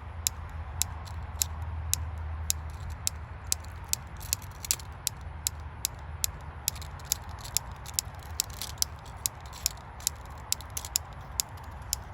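An insect on a bush limb making a sharp, high-pitched clicking, about two to three clicks a second, repeated steadily.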